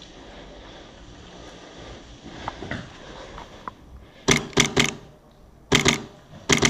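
Airsoft rifle firing in short groups of sharp shots: three in quick succession, then two, then one more near the end.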